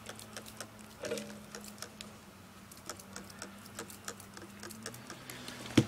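Scattered light clicks and ticks of tools and metal engine parts being handled on a workbench, over a faint steady hum, with one sharp knock near the end.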